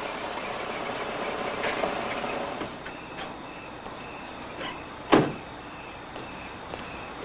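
A van's engine running as it pulls up, its noise dropping about two and a half seconds in as it stops. About five seconds in comes a single loud car-door slam, followed by a few light clicks.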